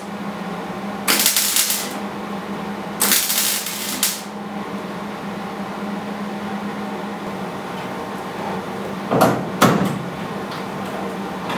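Electric welder tack-welding the steel trunk lid hinge bracket: two short bursts of arc crackle, about a second each, over a steady low hum. Two brief knocks follow near the end.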